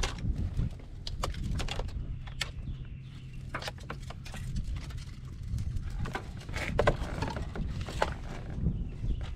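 Irregular clicks, taps and rattles of a car's wiring harness and plastic connectors being pulled out of the dashboard and handled, over a low steady rumble.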